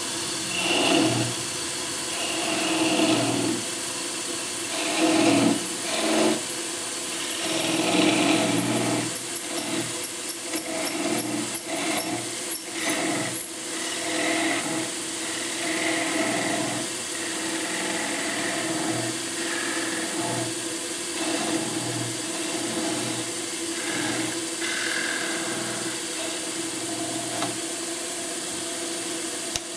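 Wood lathe running with a steady hum while a narrow chisel cuts down the thin tenon holding an elm egg, scraping on and off as the egg is parted from the chuck. Partway through, a quick run of high ticks speeds up and then stops.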